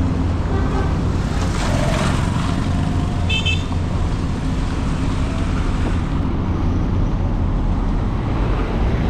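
Road traffic: cars and other motor vehicles running past, a steady low rumble of engines and tyres, with a brief high-pitched toot a little over three seconds in.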